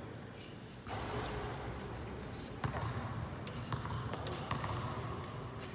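Fencers' footwork thudding on a hard floor during smallsword practice, with scattered sharp clicks at irregular moments.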